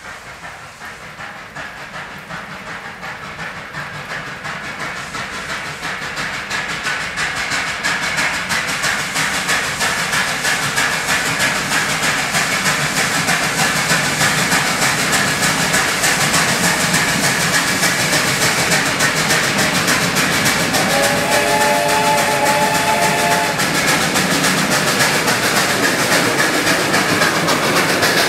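1920 Baldwin 4-6-0 steam locomotive approaching, its rhythmic working sound growing steadily louder as it comes. About two-thirds through it sounds its steam whistle, several tones at once, for about three seconds.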